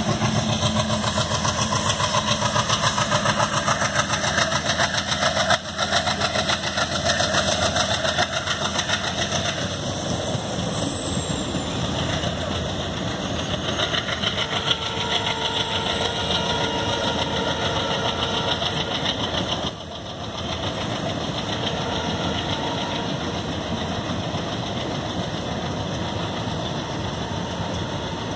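Indian Railways express train accelerating past. The locomotive's engine runs hard and throbs for the first several seconds, then the passenger coaches roll by steadily.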